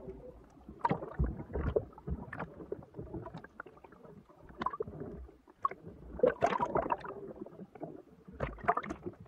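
Sea water splashing and sloshing at the surface as a speared European sea bass is lifted out on the spear shaft, with the camera at the waterline. The splashes are uneven and loudest a little past the middle and again near the end.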